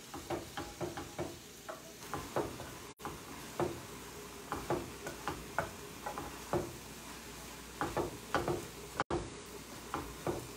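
Wooden chopsticks tossing shrimp and rice noodles in a sauté pan, tapping and scraping against the pan in quick, irregular clicks, over a faint sizzle from the pan on the lit burner.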